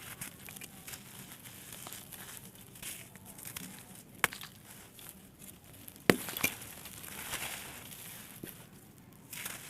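Small dry blocks of red sand and clay dirt being crumbled, a continuous gritty crackle with a few sharp pops, the loudest about six seconds in.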